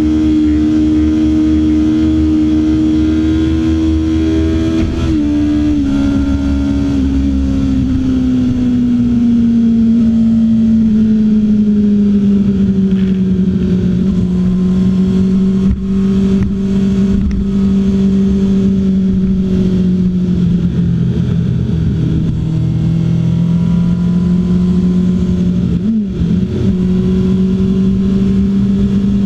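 Honda CBR600's inline-four engine running at highway cruising speed, heard from on the bike. Its pitch falls gradually over the first dozen seconds, then holds steady, with a brief hitch about five seconds in and again near the end. A steady rush of wind and road noise runs underneath.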